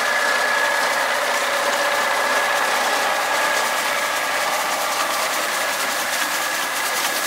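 Tractor engine running steadily while it pulls a vintage McCormick reaper-binder cutting wheat, with the binder's cutter bar, reel and gearing clattering rapidly and evenly.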